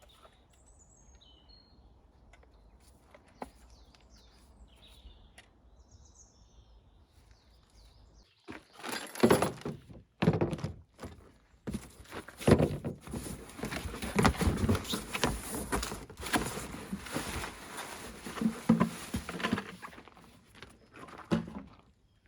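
Faint bird chirps over quiet outdoor background; from about eight seconds in, loud irregular rustling and knocking of packaging and items being handled and unpacked.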